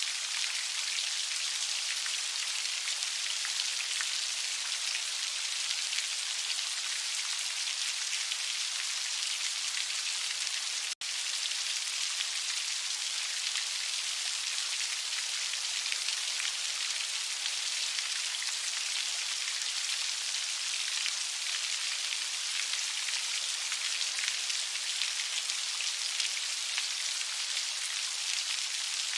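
Heavy rain falling steadily, an even hiss with no let-up, except that it cuts out for an instant about eleven seconds in.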